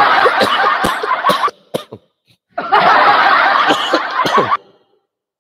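A man laughing hard in two long, breathy fits, with a short pause and a few quick breaths between them about halfway through.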